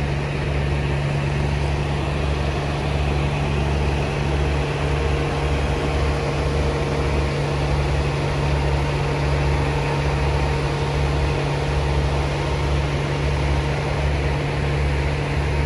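Heavy-haul truck's diesel engine running steadily as it tows a house on a multi-axle moving trailer, with a low throb pulsing a little over once a second.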